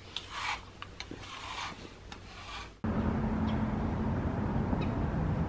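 Brush strokes through a cat's long fur: a few rasping sweeps of a hand brush, with the cat rubbing itself against a bristled self-grooming brush at the same time. Nearly three seconds in this cuts off abruptly into a steady low outdoor rumble.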